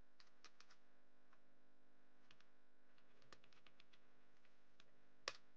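Faint typing on a computer keyboard: small key clicks in quick clusters, with one sharper click near the end.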